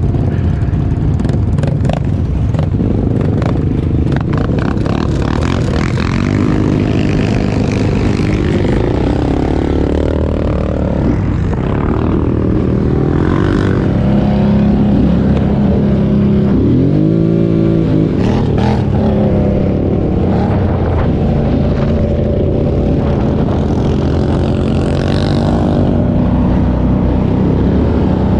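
ATV engine running under way, its pitch rising and falling repeatedly as the throttle is opened and closed. Scattered clatter and knocks come through over a low rumble.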